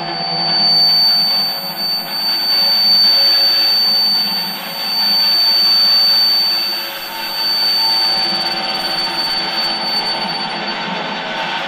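Dense, loud noise drone from prepared electric guitars played through amplifiers and effects, with a low hum underneath and a piercing high steady tone that fades near the end. The whole mass swells and ebbs in three or four waves.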